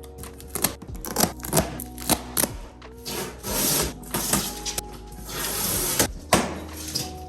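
Knife cutting packing straps and tape off a cardboard shipping box, heard as irregular snaps, scrapes and rustles of cardboard and plastic, with a couple of longer slicing strokes midway, over background music.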